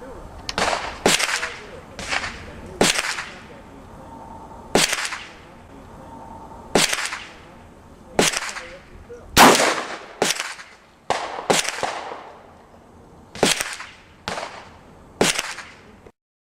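Rifle shots, about fifteen in irregular succession over some fifteen seconds, each a sharp crack with a short ringing tail; the loudest comes about halfway through. The audio cuts off just before the end.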